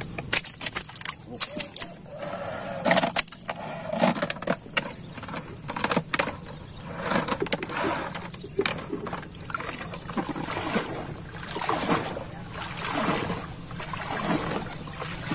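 Wet nylon gill net pulled hand over hand out of the river into a wooden canoe, with water splashing and dripping off it in repeated swells. In the first two seconds there is a quick run of knocks and slaps as a tilapia is dropped into the water in the bottom of the hull.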